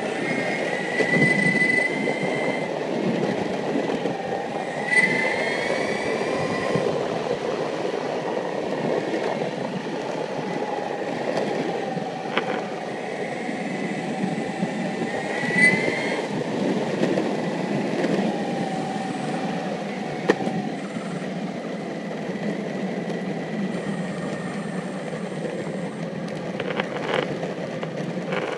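Alien Drive dual-motor Commuter electric skateboard rolling fast over asphalt: a steady wheel rumble with a high motor whine that climbs in pitch several times as it speeds up. A couple of sharp clicks are heard over it.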